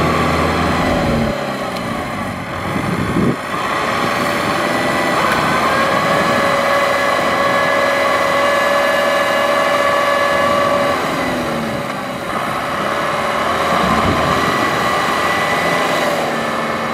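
Kubota farm tractor's diesel engine working under heavy load as the tractor spins its wheels, stuck in deep mud. The engine note drops about a second in, holds steady, then dips and rises twice near the end.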